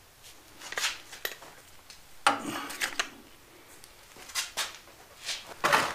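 A string of separate clinks, rattles and knocks as the black plastic cooling fan is handled and lifted off the flywheel of a Kawasaki 19 hp mower engine. The louder knocks come about two seconds in and near the end.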